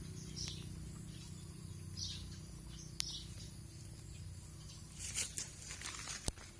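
Small birds chirping in short, separate calls every second or so, over a steady low hum, with a sharp click about three seconds in and another near the end.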